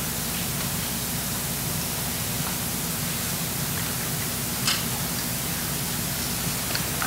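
Steady background hiss with a low hum underneath, and one faint tick a little over halfway through.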